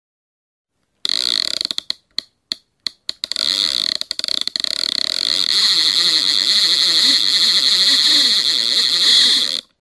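Logo intro sound effect: a loud, hissing noise that starts about a second in, stutters on and off in quick cuts for a couple of seconds, then holds steady and cuts off suddenly near the end.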